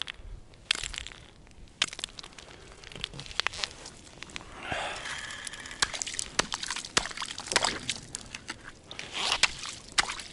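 Small hatchet chopping at the ice around an ice-fishing hole, breaking open ice that has frozen over it: a run of sharp knocks, with ice chips and slush sloshing in the water of the hole.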